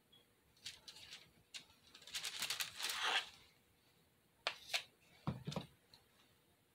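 Metal ice cream scoop scraping through a thick spackle mixture in a plastic bowl, a scraping for about a second. A few light clicks follow, then a dull knock as the plastic bowl is set down on the table.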